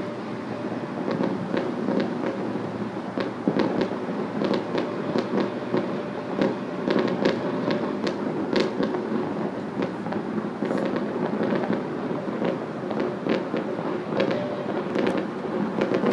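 Many fireworks and firecrackers going off at once: a continuous rumble of overlapping bangs, with frequent sharp cracks standing out from it.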